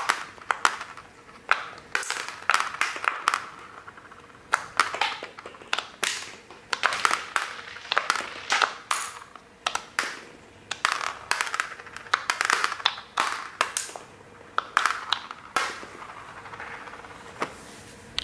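M&M's candies being popped out of a green silicone pop-it toy as its bubbles are pushed through from below, the hard-shelled candies clicking and bouncing on a hard table. Dozens of sharp, irregular clicks and taps, many in quick little clusters.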